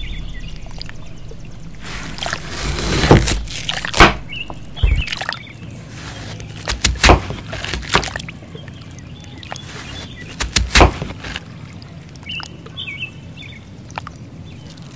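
Water sloshing and splashing in several short bursts, with a few brief bird chirps in between.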